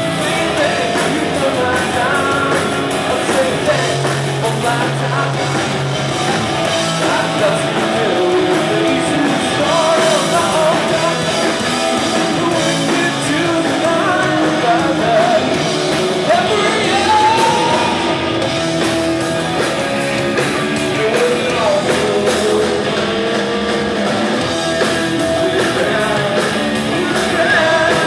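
Rock band playing live: electric guitars, bass guitar and drums, with a lead vocal sung over them.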